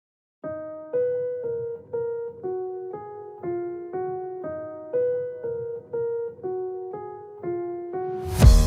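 Background music: a keyboard or electric piano playing a melody of evenly spaced single notes, about two a second. Near the end a loud electronic beat with heavy drums comes in.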